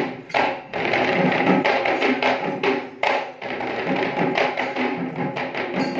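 Kandyan geta bera drums struck by hand in a fast, dense rhythm, several drummers together, over a steady held tone; the drumming dips briefly about three seconds in.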